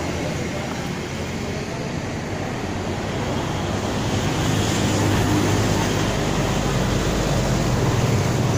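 Motor vehicle engine noise: a steady low hum that grows louder about halfway through.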